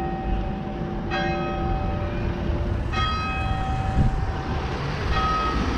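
Church bells ringing, a stroke about every two seconds, each ringing on in several steady tones, over a low rumble.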